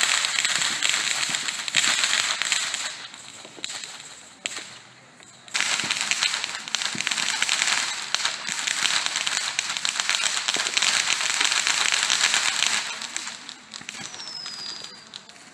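Fireworks crackling close to the ground: a dense stream of rapid small pops and crackles. It dies down about three seconds in, starts up again suddenly about five and a half seconds in, and fades near the end.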